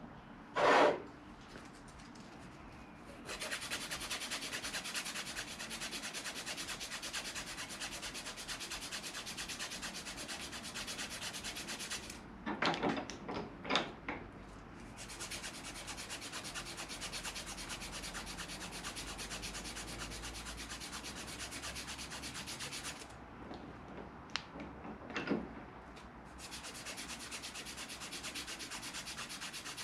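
Sandpaper strip pulled rapidly back and forth around a golf club ferrule, shoe-shine style, turning it down by hand: a fast, steady rasping. It stops twice for a few seconds, with a few short, louder sounds in the pauses.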